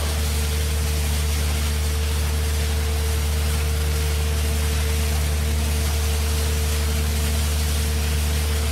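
Farm machinery engine running with a steady low hum and an even hiss over it, unchanging throughout.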